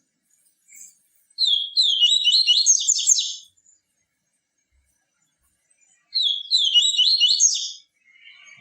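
Papa-capim seedeater singing: two phrases, each about two seconds of rapid high notes, the second starting about five seconds after the first.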